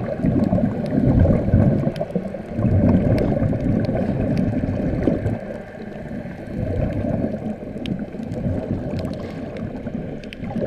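Air bubbling out of a sea-walking diving helmet, heard underwater: a low rushing gurgle that swells and fades in surges, with faint scattered clicks.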